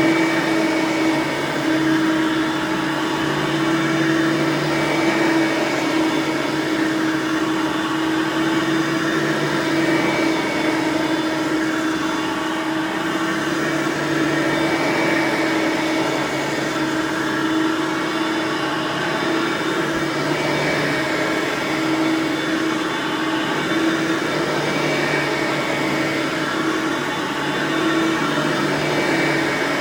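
Hoover Platinum Collection lightweight bagged upright vacuum (model UH30010) running steadily on its 5.5-amp direct-air motor, a constant motor hum over the rush of air.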